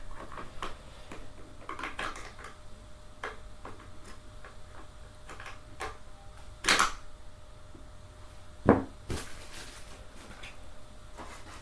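Scattered clicks and knocks of gaming-chair parts and screws being handled and fitted, with two louder knocks about seven and nine seconds in.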